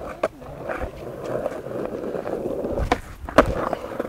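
Skateboard wheels rolling on a concrete path, then the sharp pop and the board slapping down as the rider tries a heel flip, the loudest knocks about three seconds in.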